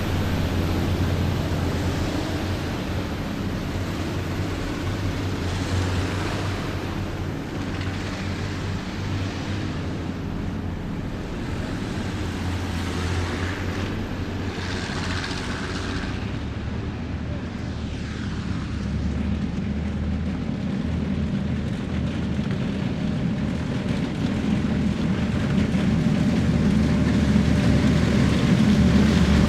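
Heavy military vehicles' engines rumbling low and steady as the column drives past, growing louder near the end as more vehicles close in.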